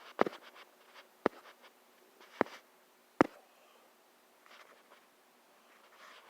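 Four sharp clicks or taps in the first three seconds or so, roughly a second apart, followed by faint rustling.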